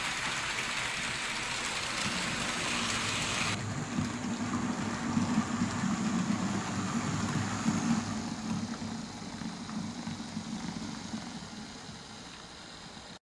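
HO-scale model train running on the layout's track: a steady hiss of wheels and motor, then, from about three and a half seconds in, a louder close-up rumble with irregular clicks from wheels on the rails, fading near the end.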